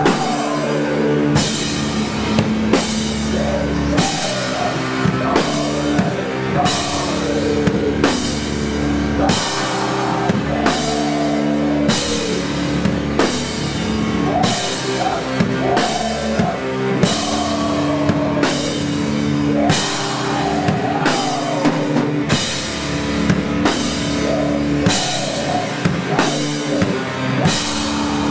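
Live doom/sludge metal band playing a slow, heavy song: distorted guitar and bass holding sustained chords over drums, with a cymbal struck on a steady beat. A woman's voice sings over it.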